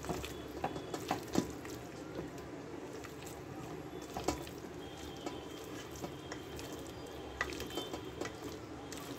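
A hand squishing and kneading chicken pieces in a thick, wet spice marinade in a steel bowl, with scattered light clicks against the bowl over a steady low hum.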